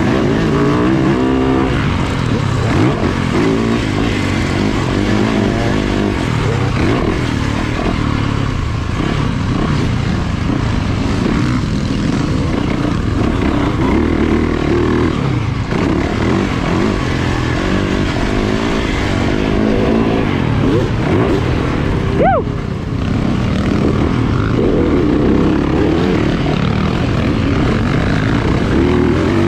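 Yamaha YZ250 two-stroke dirt bike engine being ridden hard, its revs rising and falling continuously, with wind noise. About two-thirds of the way through the revs drop sharply for a moment, then pick up again.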